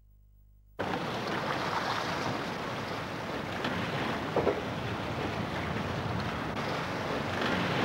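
Steady wash of sea and wind on the microphone, starting suddenly about a second in.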